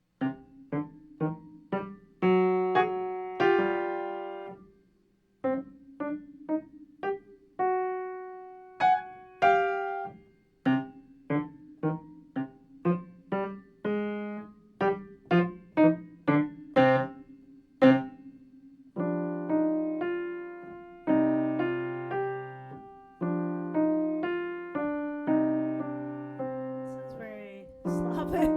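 Solo piano sight-read in a mysterious style: short, detached single notes and small chords with little pauses between them. About two-thirds through it changes to steady repeated chords over a held low bass, with a quick run of notes near the end.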